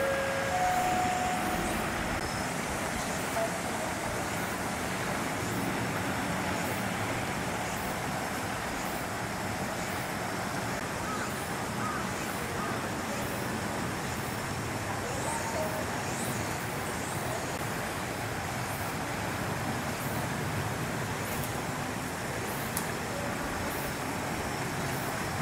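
Steady outdoor background noise, an even hum and hiss with no distinct event in it. A few short, faint tones sound right at the start.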